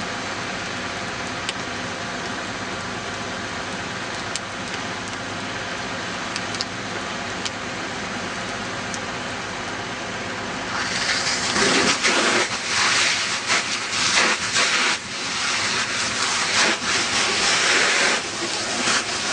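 Burning car, the fire making a steady rushing noise with a few sharp pops. About eleven seconds in, a louder, rougher hissing rush begins and surges unevenly: a fire hose stream striking the burning car and turning to steam.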